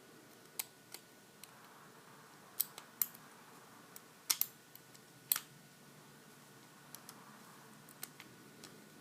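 Faint, irregular metallic clicks of a lock pick and tension wrench working the pins inside a Master Lock 410 padlock, about a dozen small ticks spread unevenly.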